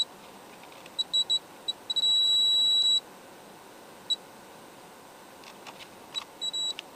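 Multimeter in continuity mode beeping as its probes touch points around a chip on a circuit board: several short high beeps and one held tone of about a second. Each beep marks a low-resistance path from the probed capacitor pad to ground.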